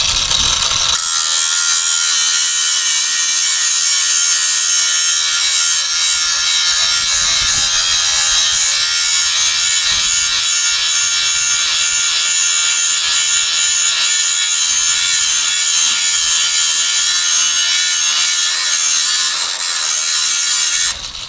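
MtiolHig 20V brushless cordless angle grinder grinding a steel blade under heavy pressure: a loud, steady, high-pitched grinding rasp that holds with little change and stops near the end.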